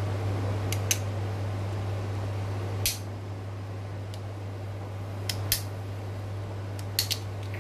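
Small sharp clicks and scrapes of a hand tool picking at the plastic inside of a Jouz 20 device's housing as it is cleaned out, about nine clicks scattered irregularly over a steady low hum.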